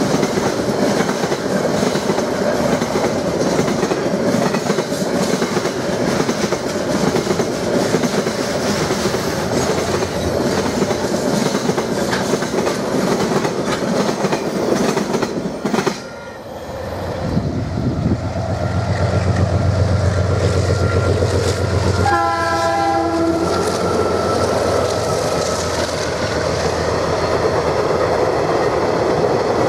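Container freight train rolling past, wagon wheels clattering steadily over the rail joints. After a cut about 16 s in, a diesel locomotive's engine drones low, and about 22 s in a short horn blast sounds.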